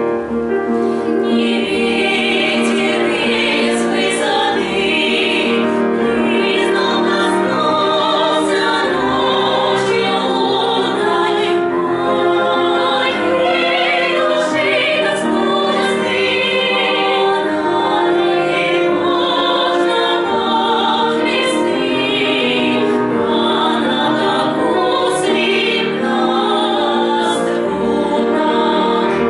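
Female vocal ensemble singing a Russian romance in harmony, with piano accompaniment.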